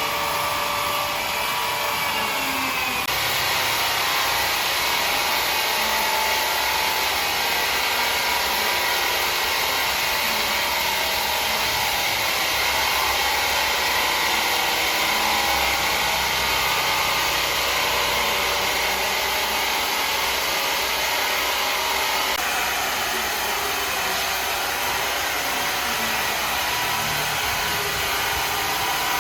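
Heavy power saw running and cutting through wood: a steady mechanical whine over dense noise, changing abruptly about three seconds in and again near the twenty-two second mark.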